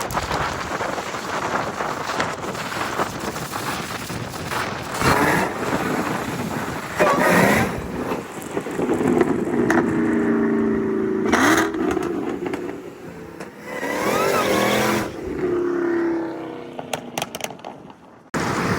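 Car on the move: rushing wind noise on the microphone, with an engine note that rises and falls in the middle. The sound cuts off abruptly near the end.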